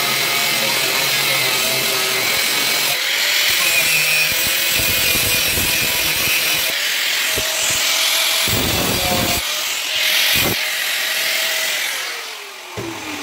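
Electric angle grinder with a cut-off disc cutting through the protruding end of a steel rebar axle, running steadily under load. Near the end the trigger is released and the motor winds down with a falling whine.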